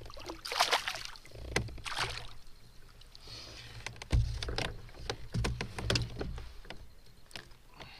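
Splashing and knocking as a small bass is swung out of the water into a plastic kayak and handled, with irregular bursts of noise and a low thump on the hull about four seconds in.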